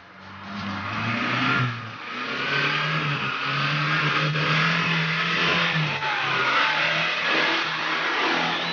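Off-road 4x4's engine revving hard under load, building over the first couple of seconds and then held at high revs.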